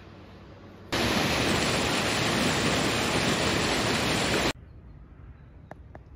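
Rushing stream tumbling over rocks: a loud, steady rush of water that cuts in about a second in and cuts off sharply about three and a half seconds later, leaving faint outdoor ambience with a few light ticks.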